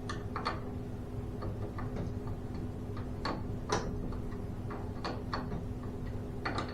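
Metal clicks from an open-end wrench working a bolt on garage door torsion spring hardware, several coming in pairs about half a second apart, over a steady low hum.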